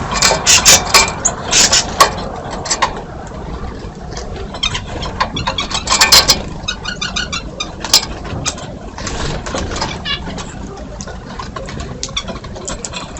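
Birds at a feeder: a busy mix of sharp taps, flutters and short calls, with a quick run of repeated chirps about six and a half seconds in, over a steady low rumble.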